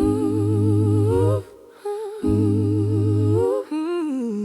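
Gospel worship song outro: a wordless hummed vocal line with vibrato over two long held bass notes.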